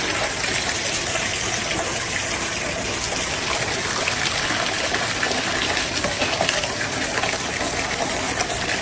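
Water rushing steadily with a dense, even hiss.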